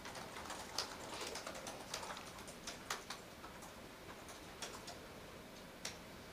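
Faint, irregular key clicks of laptop keyboards being typed on by reporters, over low room hiss.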